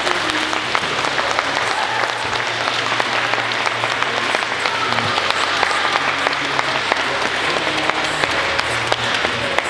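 Audience applauding, with many hand claps blending into a dense, steady clatter and music playing faintly underneath.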